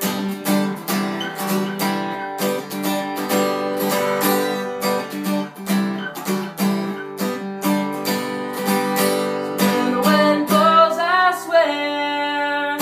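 Acoustic guitar strummed in a steady chord rhythm. Near the end a voice comes in with a wordless sliding note that settles into a held note.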